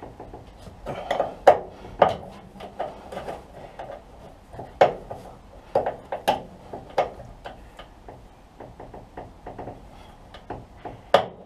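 Hand tools clinking and knocking on metal at an irregular pace, one or two sharp clicks a second, as a tight bolt is worked loose with a spanner.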